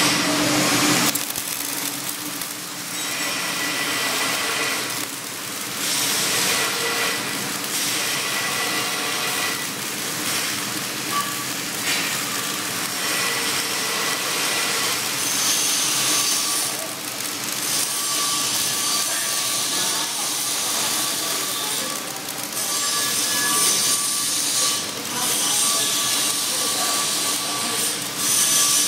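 Flux-cored arc welding on a vertical (3G) carbon-steel plate: the arc crackles and hisses steadily.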